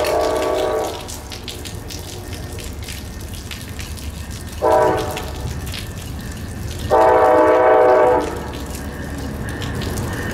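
Locomotive air horn sounding a series of blasts: one ending about a second in, a short one about four and a half seconds in, and a longer one about seven seconds in. A low, steady train rumble runs underneath.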